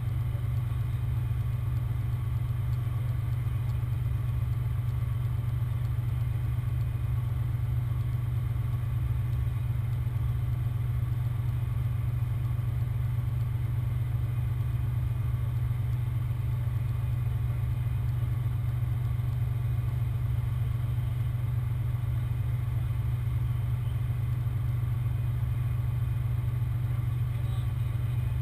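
Heavy-duty recovery truck's diesel engine running steadily with a constant low drone, driving the boom during a lift.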